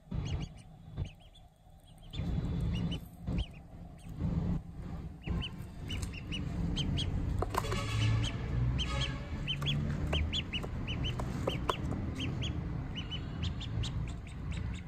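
Domestic duckling peeping: short, high peeps come several times a second, densest in the second half, over a low rumble.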